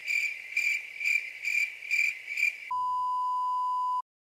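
Cricket-chirp sound effect, pulsing about twice a second: the comic 'awkward silence' cue. About two-thirds of the way in it gives way to a steady censor bleep tone that lasts just over a second and cuts off suddenly.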